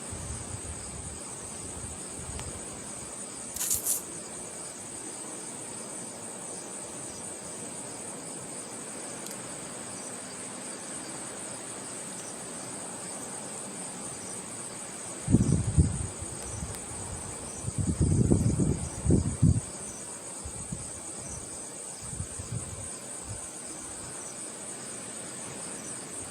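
Crickets chirping in a steady, high, even trill. Two stretches of low rumbling come through it, the louder and longer one about 18 seconds in, and there is a brief rustle near the start.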